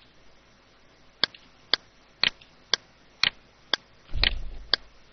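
Sharp clicks at a steady rate of about two a second, starting about a second in, with a brief low rumble about four seconds in.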